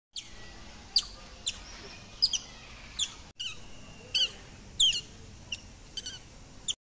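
Asian small-clawed otters giving short, high-pitched chirps that fall in pitch, about a dozen at irregular intervals.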